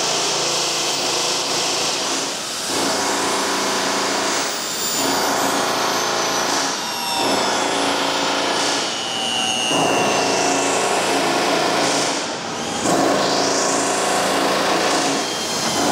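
TONE electric feedback torque wrench running on a nut, tightening it toward 11400 inch-pounds: a steady motor-and-gear drone in stretches of two to three seconds, with brief dips between them.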